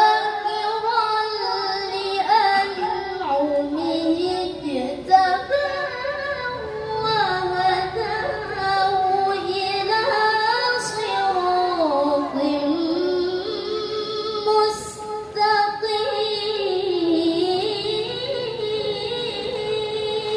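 A female Quran reciter (qori'ah) chants a verse in the melodic tilawah style into a microphone. She holds long, ornamented notes that wind up and down in pitch, with short pauses for breath.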